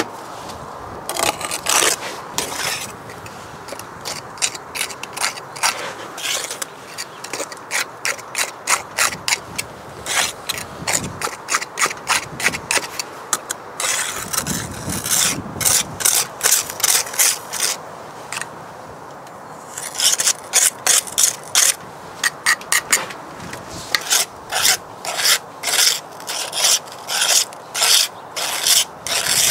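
Repeated short scrapes of a steel pointing tool drawing mortar off a trowel and pressing it into brick joints. The strokes come in quick runs of about three or four a second, with pauses between the runs.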